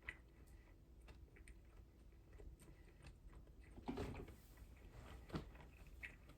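Faint mouth sounds of eating: scattered small clicks of chewing, with a louder bite or chew about four seconds in and another just over a second later.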